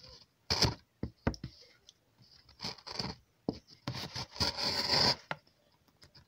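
Scalpel blade of a handmade adjustable lace cutter slicing a thin strip from the edge of a leather disc, heard as several short scraping pulls with a few clicks, the longest about four to five seconds in.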